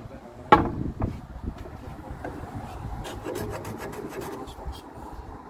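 Hand block plane being pushed along the edge of a cupboard door in short scraping strokes, trimming it down. A sharp knock about half a second in is the loudest sound.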